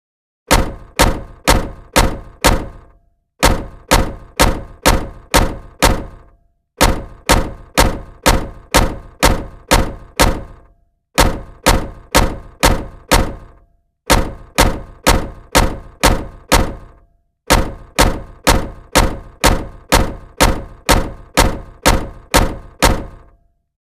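A heavy thunk sound effect struck about twice a second, in six runs of five to nine hits with short pauses between them, each hit ringing briefly before dying away.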